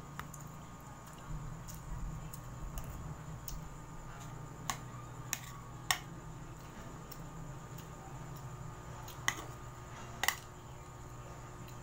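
A metal spoon clicking sharply against a ceramic plate while cutting into mango: three clicks near the middle and two more near the end, over a steady low hum.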